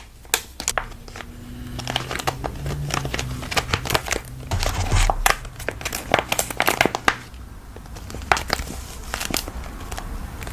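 Irregular crinkling and crackling, like packaging or a similar crinkly material being handled close to the microphone, with a faint low hum underneath during the first two-thirds.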